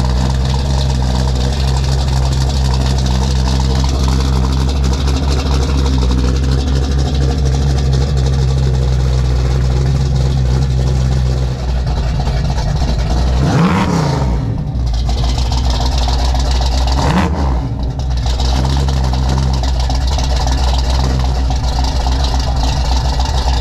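Car engine idling loudly through a newly built custom exhaust, with a steady low rumble, blipped twice about halfway through: one longer rev that rises and falls, then a shorter one.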